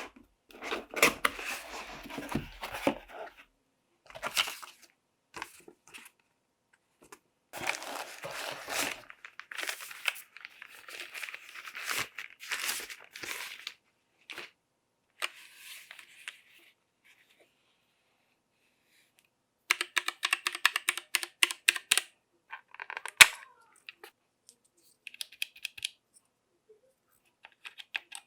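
Packaging being handled and opened: crinkling and tearing of wrapping in bursts. After a short pause in the second half comes a quick run of sharp clicks, then one loud click and a few scattered ones.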